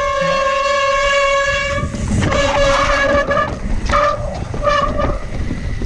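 Wet mountain bike brakes squealing: one long, steady, high squeal for about two seconds, then three shorter squeals as the brakes are pulsed on a steep descent.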